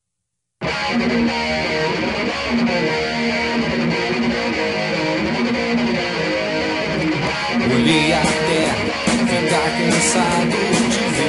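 Rock band's guitars starting abruptly about half a second in, playing the song's intro with steady held notes; sharp percussive hits join in about eight seconds in.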